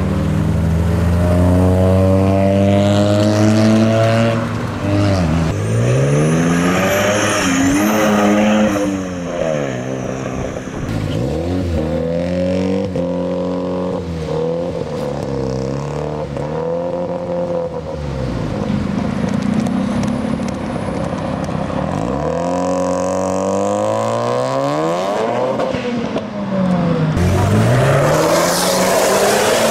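Mazda RX-7 rotary engines revving hard and accelerating away, one car after another, the pitch sweeping up and falling back many times. A high whistle sounds over the engine for a few seconds near the first third.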